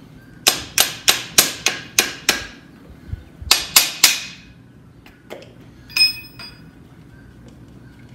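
Sharp metal-on-metal strikes of a hand tool on the engine: about seven quick blows, a short pause, three more, then a single ringing clink of metal.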